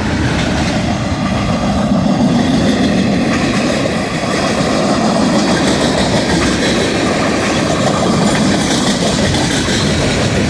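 Freight train passing close by: steady, loud noise of wheels rolling on the rails, with some clatter.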